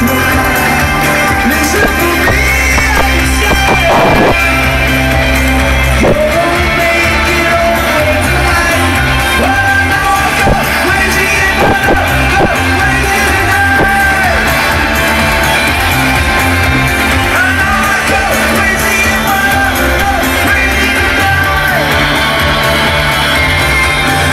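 Live rock band playing with electric guitars and a singer, loud and continuous, heard from among the crowd in a large arena.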